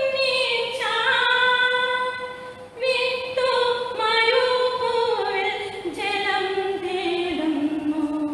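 A woman singing a devotional song solo and unaccompanied, in long held notes, with a short breath a few seconds in; over the last few seconds the melody steps down to a lower held note.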